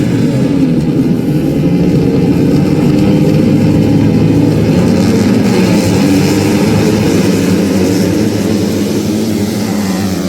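Several motocross bike engines running hard together, their pitches weaving over one another, easing off a little near the end.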